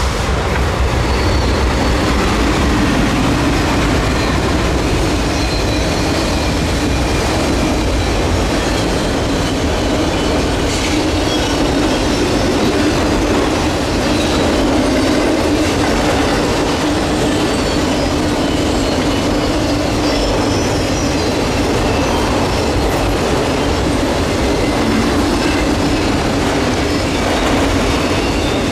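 Freight train passing close by: two Norfolk Southern diesel locomotives go past at the start, then a long string of autorack cars rolls by with a steady, loud rumble of wheels on rail and clickety-clack over the rail joints.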